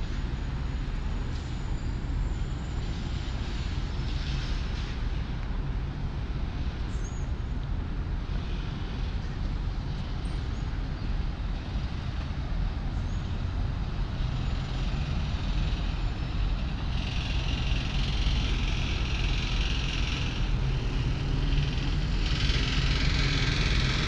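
Steady low rumble of city traffic noise. A higher hiss swells twice for a few seconds near the end.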